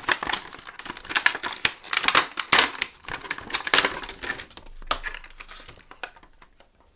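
Stiff plastic blister packaging crackling and clicking as it is pulled apart by hand, the clicks thinning and fading near the end.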